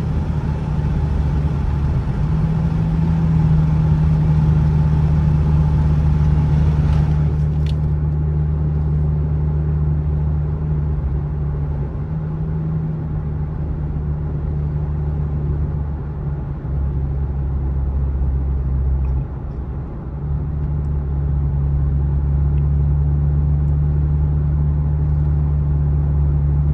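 Lexus with a freshly fitted aftermarket axle-back exhaust cruising, heard from the driver's seat: a steady low exhaust drone over road noise. A high hiss stops about seven seconds in, and the engine note dips briefly near twenty seconds before steadying again.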